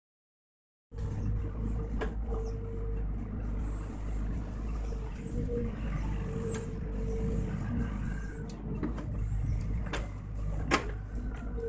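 Sany SY55C mini excavator's diesel engine running steadily as it digs, with a whine that comes and goes and several sharp knocks, the loudest about ten seconds in. The sound cuts in suddenly about a second in after dead silence.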